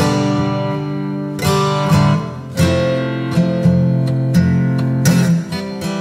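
Background music: a strummed acoustic guitar playing chords.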